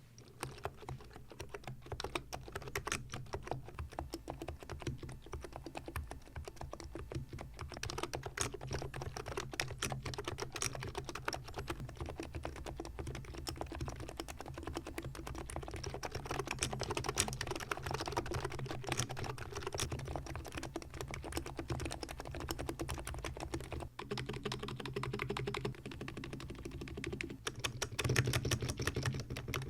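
Typing on a Cox Endeavour electro-capacitive keyboard that has been fully lubed, with Krytox 105/205 on the switches and Permatex on the stabilizers. It is a fast, continuous run of key strokes, with a few louder strokes near the end.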